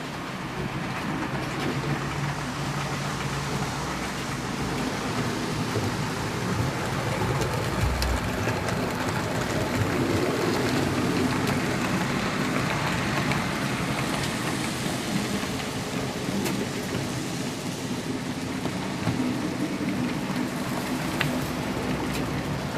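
HO scale model train running along the track: a steady rumbling rattle of small wheels on rails over an electric motor's hum, growing louder over the first several seconds as it comes closer.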